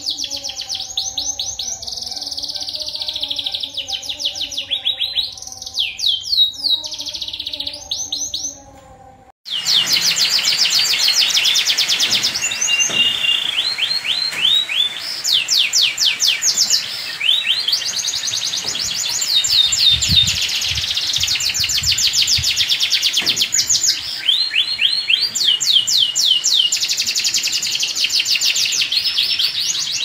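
Domestic canaries in full song: long, fast trilling phrases follow one another almost without pause. The song stops suddenly for under a second about nine seconds in, then carries on.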